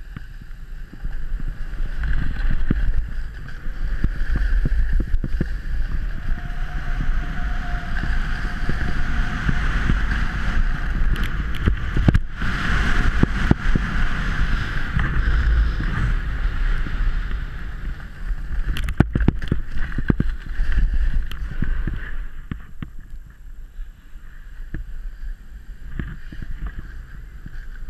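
Snowboard base and edges scraping and hissing over packed snow as the rider goes down the run, with wind buffeting the helmet-mounted action camera's microphone. The scraping breaks off sharply twice, about halfway through and again several seconds later, as the board leaves the snow over the spine jump and the small jump after it. Near the end it eases to a quieter hiss as the ride slows.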